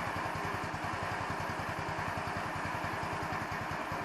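150cc Chinese scooter's single-cylinder engine idling with a steady, even pulse of about ten beats a second. The owner suspects the idle mixture is not set properly.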